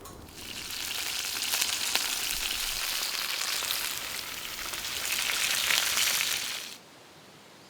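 Sausages frying in a wok: a steady sizzle full of small crackles and pops that cuts off suddenly near the end.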